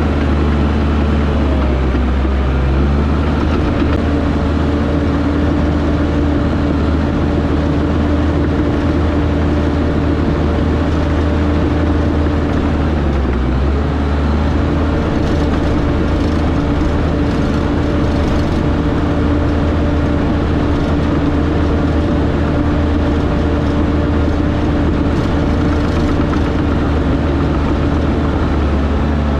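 Heavy diesel engine of earthmoving equipment running hard and steadily. Its note sags and recovers as it takes load, about two seconds in and again near the middle.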